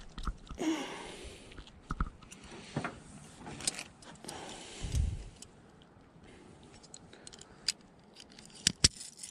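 Fishing reel and tackle being handled while a small bass is reeled in: scattered clicks and light rattles, a brief swish about a second in and a dull thump about five seconds in.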